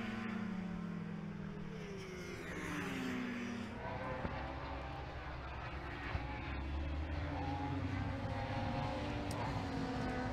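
Racing superbike engines heard trackside as the bikes go by. The engine notes fall in pitch near the start and again about three seconds in, then several bikes run on together with steady, layered engine tones.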